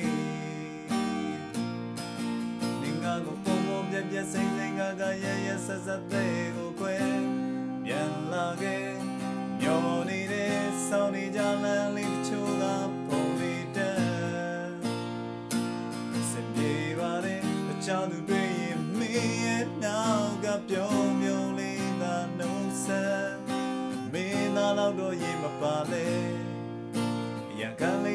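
Strummed acoustic guitar accompanying a man's voice singing a Burmese song, with the voice dropping out now and then between sung lines.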